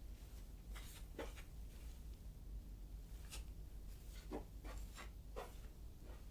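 Faint handling noises: a few light clicks and short rustles, scattered and irregular, over a low steady hum of room tone.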